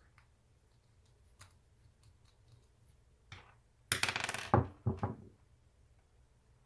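Small steel screws and flat-bar parts clinking and rattling as they are handled, with a few faint ticks and then two short bursts of jingling metal, the louder about four seconds in.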